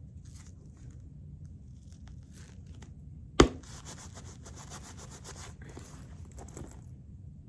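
Rustling and rubbing of a fabric purse being handled, with one sharp knock about three and a half seconds in, followed by more rustling.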